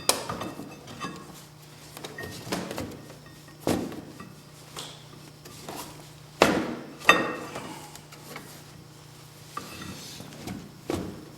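Scattered knocks and metal clanks as the drive belt is worked off a snowmobile's clutch sheaves. The loudest are two sharp clanks a little over six and seven seconds in, over a faint steady hum.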